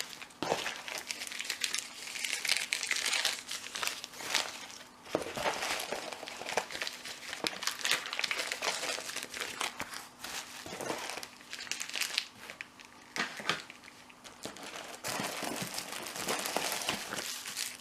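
Packing paper crumpling and rustling as it is handled and pushed aside in a box, in uneven bursts, with a few light knocks among it.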